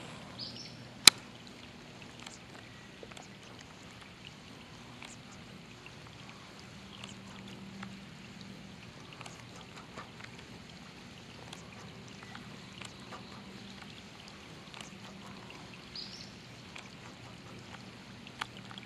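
Steady rain falling on a lake, with many small scattered drop ticks, and one sharp click about a second in.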